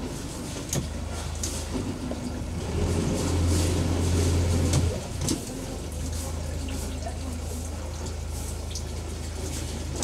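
Motorboat engine running at idle with a steady low hum. About three seconds in it grows louder for roughly two seconds, with water churning, then settles back to idle. A few light knocks are heard along the way.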